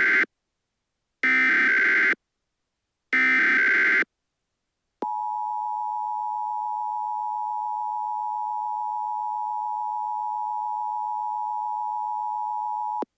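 Emergency Alert System tones: the end of one burst and two more full bursts of SAME header data, each about a second long with a second's gap between them. Then the two-tone EAS attention signal holds steady for about eight seconds and cuts off suddenly near the end.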